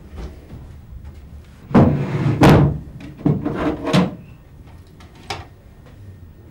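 A few sharp knocks and bangs: two loud ones close together about two seconds in, two more a second or so later, and a faint one near the end.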